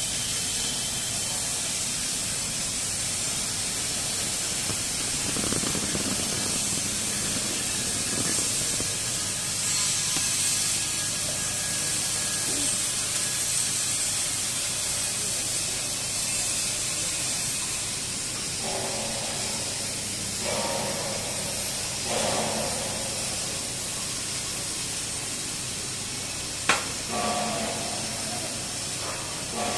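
Steady hissing background noise of a busy pipe fabrication shop floor, with indistinct voices about two-thirds of the way through and one sharp knock near the end.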